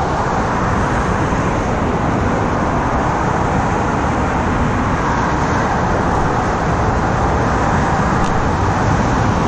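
Steady, unbroken road traffic noise.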